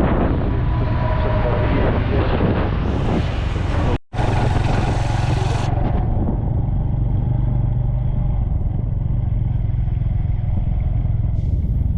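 Motorcycle engine running steadily under way, with road and wind noise over it. The sound cuts out for a moment about four seconds in, then the engine carries on.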